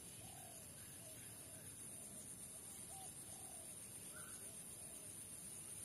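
Faint bird calls: short arched notes repeated every half second to a second over a steady high hiss.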